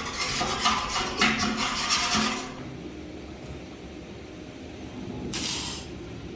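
Hand metalworking at a stove workbench: a rough rasping, grinding tool noise for the first two and a half seconds, then a short sharp hiss a little past five seconds in.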